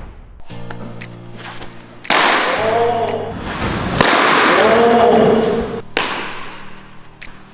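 Background music with edited sound effects: two loud swells that start sharply about two and four seconds in, and a sharp crack near six seconds, cut over pitching clips.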